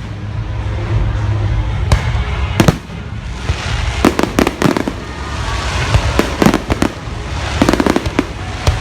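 Fireworks display going off: two single sharp bangs about two seconds in, then dense clusters of crackling reports in the second half, over a steady low rumble.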